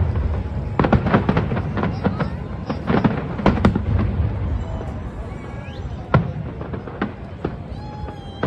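Fireworks going off in rapid volleys of bangs over a low rumble. The bangs are densest in the first half and thin out toward the end.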